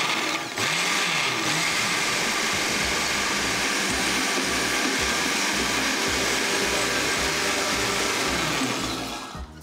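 Countertop blender motor running at a steady speed, its blades puréeing basil, parsley, garlic and olive oil into pesto. It runs down and stops near the end.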